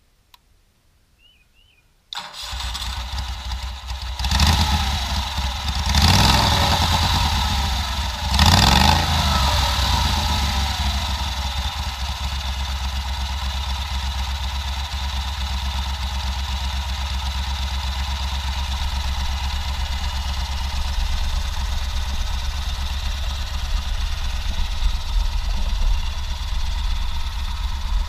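Home-built board-track motorcycle's 20 hp Kohler Command V-twin engine with custom headers starting about two seconds in, revved briefly three times, then settling into a steady idle.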